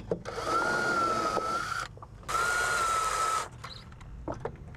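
Cordless drill running at speed in two bursts of about a second and a half each with a steady whine, drilling holes into the fiberglass boat deck through the bolt holes of a T-top leg's aluminum base plate.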